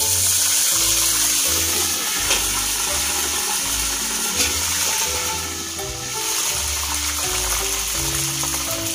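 Whole fish deep-frying in hot oil in a wok, a steady loud sizzle that rises as the lid comes off, over background music.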